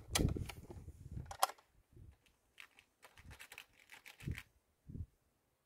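Clicks and knocks from a Hatsan Torpedo 155 Vortex underlever air rifle being handled between shots: a quick cluster of sharp clicks at the start, then scattered light clicks for a few seconds.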